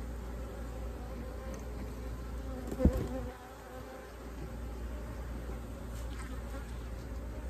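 Honey bees buzzing steadily around an open hive, with one brief, louder close-up buzz or bump about three seconds in.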